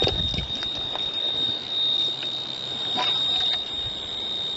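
Ludlum radiation survey meter with a 44-2 gamma scintillator probe sounding off continuously, its clicks so fast they run together into a steady high-pitched buzz. This is a count rate of several hundred counts per second from uranium-bearing radioactive fluorite. There is a little handling and wind noise and a short knock right at the start.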